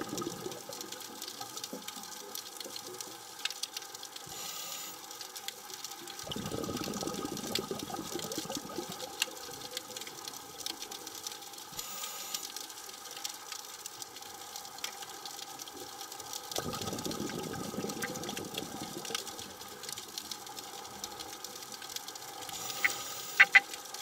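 Underwater sound of a scuba diver's exhaled bubbles from the regulator, coming in three swells about ten seconds apart. Between them run a steady hum and scattered sharp clicks, with a louder cluster of clicks near the end.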